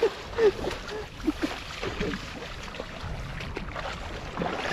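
Shallow river water splashing and sloshing irregularly as a man in chest waders wades and lunges through it.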